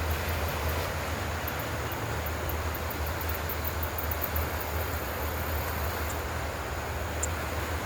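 Wind buffeting the microphone: a steady low rumble under a broad hiss.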